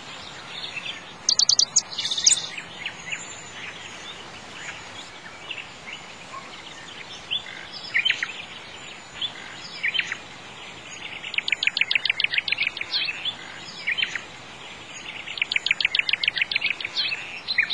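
Songbirds chirping and singing over a steady hiss. There are a few high chirps about a second in, and two rapid trills of about nine notes a second, one past the middle and one near the end.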